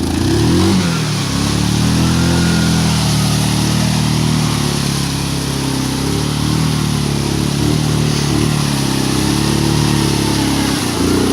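Yamaha Grizzly 550 ATV engine running hard under load. The revs climb about a second in, then waver up and down, and rise again near the end.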